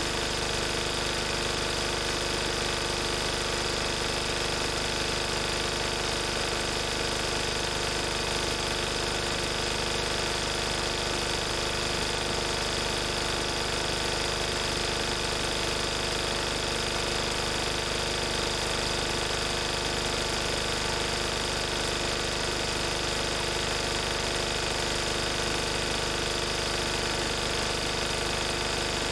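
1994 Lister Petter AD1 single-cylinder air-cooled diesel engine running steadily at its governed 3000 rpm, driving a 5 kVA generator. The note stays even throughout.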